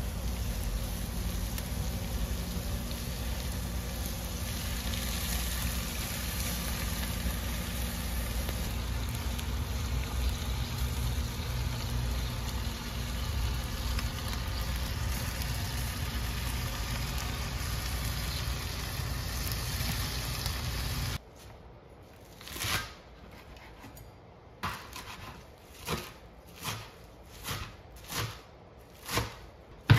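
Food sizzling on a charcoal grill: a steady hiss with a low rumble underneath, which cuts off abruptly about twenty seconds in. Then comes a run of short, sharp taps, at first spaced out and then about one a second.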